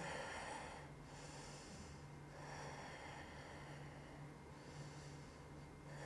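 A woman's faint breathing: soft breaths in and out, several swells with short pauses between them.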